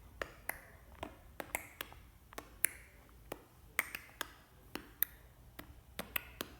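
A run of sharp mouth clicks and tongue pops, irregular, about two or three a second, some with a short hollow, pitched ring.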